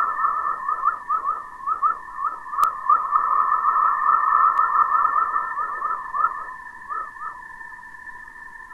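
Whistler-mode chorus from Earth's radiation belts, recorded by Van Allen Probe A and played as sound: a dense run of short rising chirps over a steady high tone. The chirps thin out after about six seconds and fade to a faint hiss near the end. A sharp click comes about two and a half seconds in.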